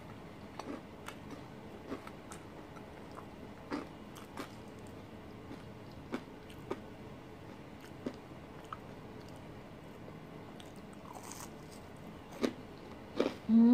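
Chewing and biting into fried banana fritters (pisang goreng), with scattered short, crisp crunches and mouth clicks.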